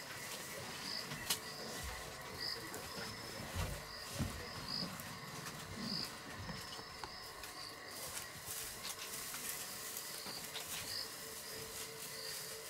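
Night insects calling: a short high chirp repeating about once a second over faint steady tones, with a couple of soft low thumps about four seconds in.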